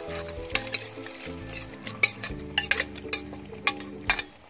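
Cooked beef pieces going into a steel pot of simmering gravy and being stirred with a metal ladle, which clinks and scrapes against the pot about eight or nine times over a sizzling bubble. Background music plays underneath.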